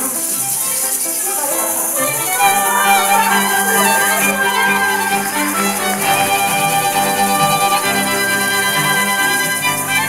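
Violins and other bowed strings playing a tune while a crowd of children shake maracas along with it. The rattling grows louder about four seconds in.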